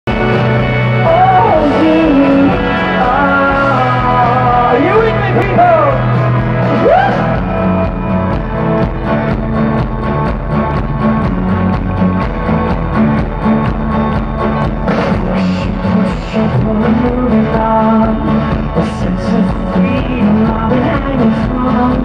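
A man singing live into a microphone over amplified instrumental accompaniment, with sliding, ornamented vocal runs in the first seven seconds, then a steady beat.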